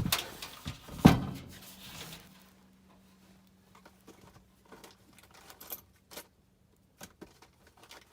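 Metal parts of a furnace blower assembly knocking and clanking as they are handled, with a sharp knock at the start and a louder clank about a second in. A faint steady hum lingers after it, and light clicks and taps follow.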